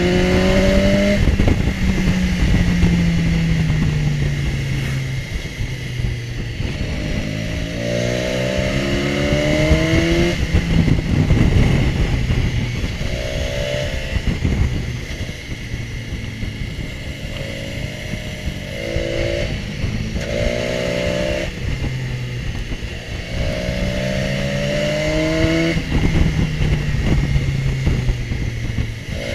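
BMW S1000XR's inline-four engine, heard from the saddle, accelerating and easing off through a series of bends: its pitch climbs in short rising runs and drops back several times. A steady rush of wind and road noise runs underneath.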